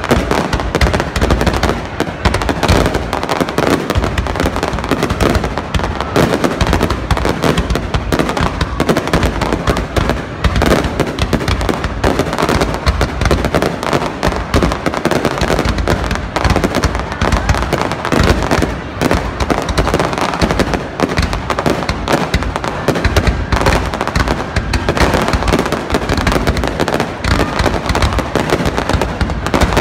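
Fireworks display: aerial shells launching and bursting in a dense, unbroken barrage of loud bangs, the reports running into one another.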